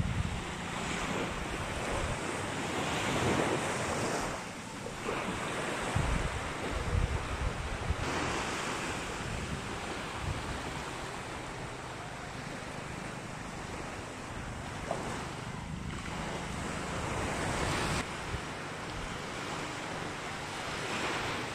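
Small waves washing up on a sandy beach, the surf swelling and falling back every few seconds, with wind buffeting the microphone.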